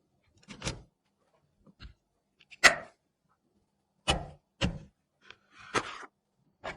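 Separate sharp clicks and knocks of computer parts being handled and fitted during a PC build, about seven in all with silence between them, the loudest a little under three seconds in.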